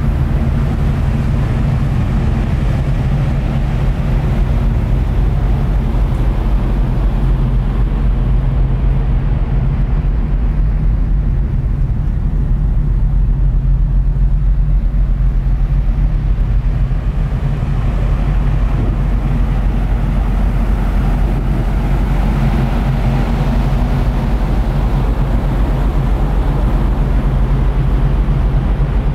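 A ferry's engines running with a steady low hum, several even tones under a rushing noise, heard from the open deck.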